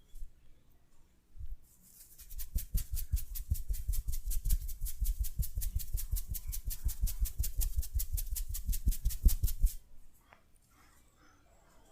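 Fast, even percussive hand tapping on the head in an oil head massage, each stroke a sharp slap with a dull thump under it. It starts a second or two in and stops suddenly about ten seconds in.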